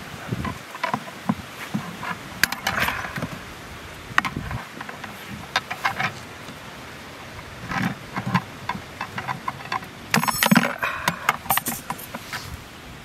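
Scattered metallic clicks, taps and scrapes of a wire coat hanger being handled and worked with pliers over a plastic bucket, with a quick run of clicks about ten seconds in.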